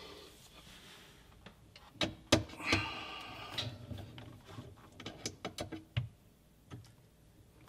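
Light metal clicks, clinks and brief rattles from a chrome wire bakeware organizer and its metal slide rail being handled and adjusted. The sharpest click comes about two seconds in, and the clicking dies away after about six seconds.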